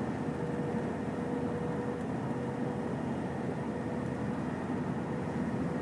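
Steady low background rumble and hiss with a faint constant hum, like a running fan or air conditioner; no distinct events.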